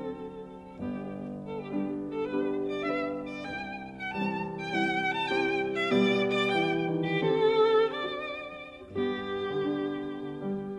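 Background music: a melody played with vibrato over sustained lower accompanying notes.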